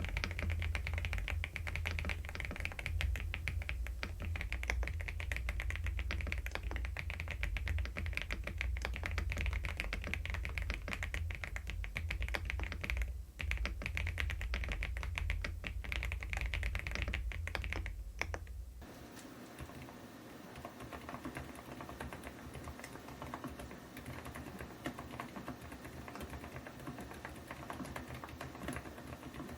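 Fast continuous typing on a Preflow F1 PRO MAX full-size mechanical keyboard, a dense run of key clicks. About two-thirds of the way in, the sound changes abruptly: a deep low rumble under the clicks drops out and the keystrokes become quieter.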